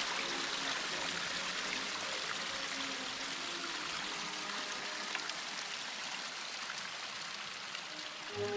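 Small forest brook running over stones, a steady watery rush. Faint music fades out in the first seconds, and music comes in again at the very end.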